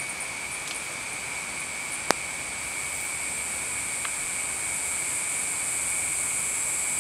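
Steady high-pitched insect chorus, growing slightly louder toward the end, with a single sharp click about two seconds in.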